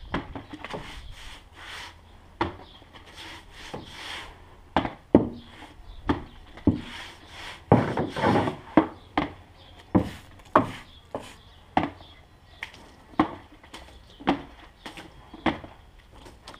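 Sawn wooden boards being handled on a stack: irregular knocks of wood on wood, with rubbing and scraping between them.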